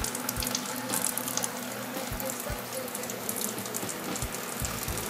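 Cooled wort running from a wort chiller's tube and splashing into a plastic bucket fermenter as it fills, foaming.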